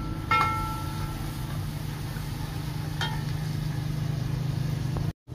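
Metal cookware clinking twice, about half a second in and again about three seconds in, each clink ringing briefly, over a steady low hum.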